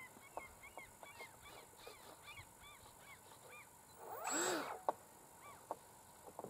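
Electric ducted fan of a Freewing F9F Panther model jet briefly spooled up and back down about four seconds in, a short whooshing motor test that is the loudest sound. Around it, short bird calls rising and falling in pitch repeat every fraction of a second.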